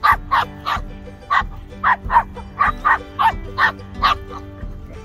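A dog barking in quick, sharp play barks, about a dozen in four seconds, then stopping, while dogs chase and wrestle each other. Background music with steady held notes runs underneath.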